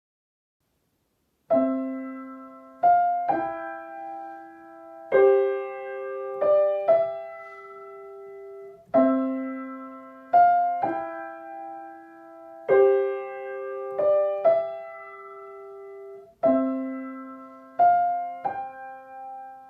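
Piano playing a short sound-effect cue of ringing chords: one chord, then two quick chords, left to fade. The figure repeats five times, about every four seconds, starting after a second and a half of silence.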